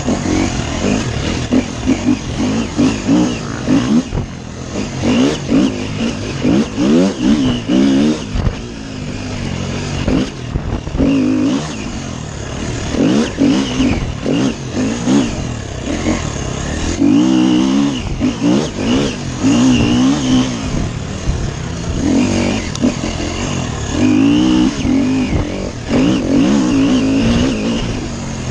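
Off-road dirt bike engine ridden hard, revving up and backing off over and over so its pitch rises and falls in repeated surges.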